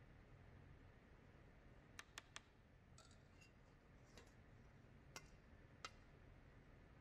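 Near silence: room tone with a handful of faint, sharp clicks and taps, three in quick succession about two seconds in and a few more scattered after.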